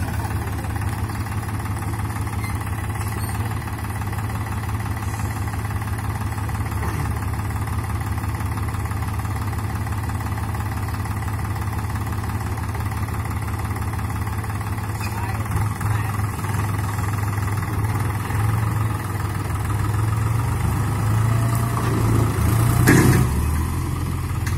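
New Holland TT4.55 tractor's diesel engine running steadily, its level rising over the last few seconds. There is a short, loud sound near the end.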